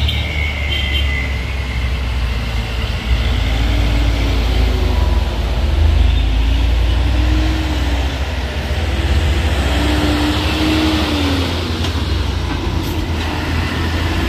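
Heavy truck's diesel engine running close by: a loud, steady low rumble, with faint wavering tones above it.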